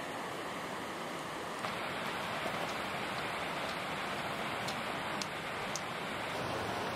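Steady outdoor rushing noise, at first the rush of a small mountain creek. About one and a half seconds in it changes to a slightly louder, brighter hiss, with a few faint ticks.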